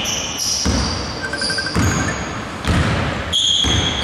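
A basketball dribbled on a hardwood gym floor, a few irregular bounces, with short high-pitched sneaker squeaks from players moving on the court.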